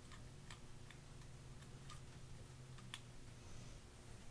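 A few faint, irregular light metallic clicks as a T-handle hex key and a small steel end-mill holder are handled, over a low steady hum.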